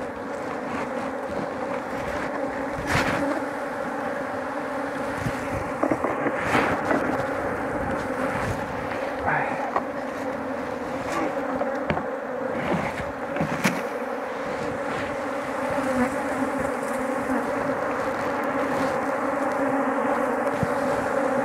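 Many honey bees (Apis mellifera) buzzing in a steady hum around a hive opened for honey harvest, with a few short sharp clicks and knocks over it.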